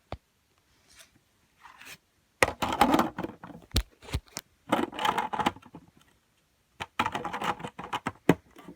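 Hands handling a LEGO brick machine and its wrapped peanut butter cups: plastic clicks, scraping and rustling in three short spells with pauses between.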